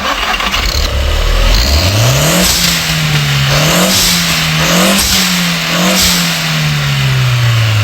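Car engine revving: its pitch climbs over the first two seconds or so, rises and dips a few times, then falls away slowly toward the end, with a rushing noise throughout.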